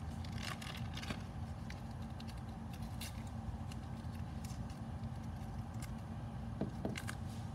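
Steady low hum of the workroom, with a few faint clicks and taps from small things being handled on the bench.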